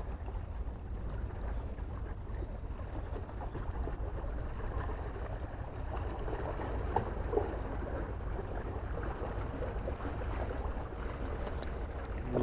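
Steady wind rumble on the microphone over the wash of the sea against breakwater rocks, with two small clicks about seven seconds in.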